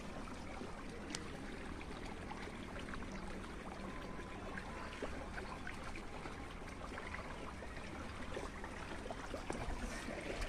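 Water running in a small stone-lined ditch: a low, steady rushing noise with scattered small ticks.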